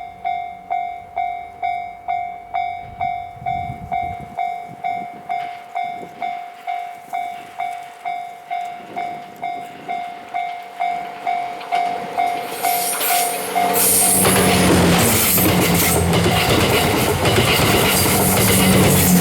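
Level-crossing warning bell ringing in a steady, even rhythm of about two and a half strikes a second. About twelve seconds in, the 87-series Twilight Express Mizukaze diesel train arrives, and its engine hum and wheel noise on the rails grow loud and swamp the bell.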